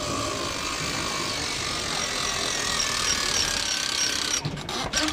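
Cordless drill spinning a boat trailer's winch through a socket adaptor, winding the boat up onto the trailer: a steady motor whine with the winch gears turning. It stops a little before the end, then comes back in short stop-start bursts.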